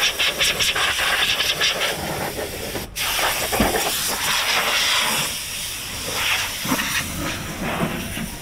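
Pressure washer spraying water, a steady loud hiss that cuts off for an instant about three seconds in.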